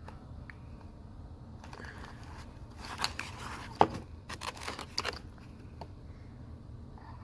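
Small parts and packaging being handled: a cluster of sharp clicks, crinkles and scrapes about three to five seconds in, with quieter handling noise around it.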